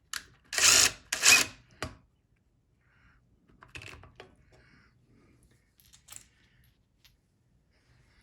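Two short bursts of a cordless impact driver on Torx screws in the first two seconds, framed by sharp clicks, followed by faint metallic clicks of parts being handled.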